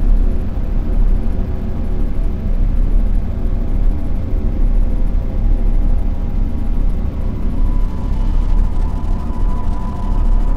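Central London street traffic: a loud, steady low rumble of passing vehicles, with a few steady humming tones over it and a higher tone joining about three-quarters of the way through.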